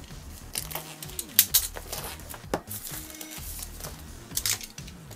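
Clear plastic shrink wrap being slit with a utility knife and pulled off a phone box, crinkling and tearing in short sharp crackles. Music plays in the background.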